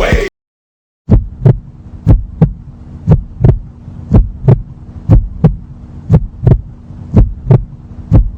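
Heartbeat sound effect: paired lub-dub thumps about once a second over a steady low hum, starting about a second in after a brief silence.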